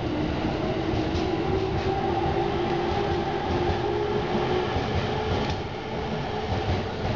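Electric commuter train pulling out of the station and rolling along the platform: a steady rumble of the cars, with a traction-motor whine that edges slowly up in pitch as it gathers speed, and a few light clacks of wheels over rail joints.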